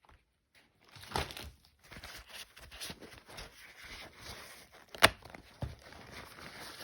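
Crinkling, rustling handling noise of wiping up with a dry cloth, with scattered small clicks and one sharp knock about five seconds in.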